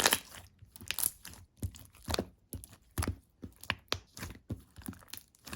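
Pink semi-transparent slime being squished and pressed by hand, giving sticky clicks and small air-bubble pops at an uneven pace of about two a second.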